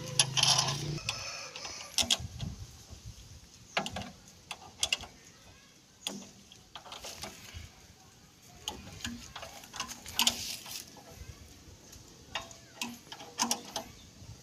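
Irregular metallic clicks and knocks of a wrench and hand on the exposed timing gears and gear case of a công nông's diesel engine while it is being reassembled.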